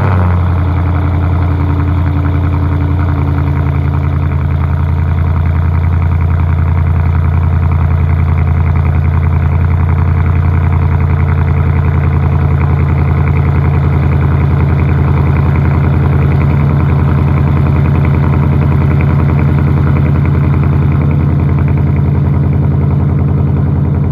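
Car engine idling steadily right after being started, a loud, even running sound that does not change.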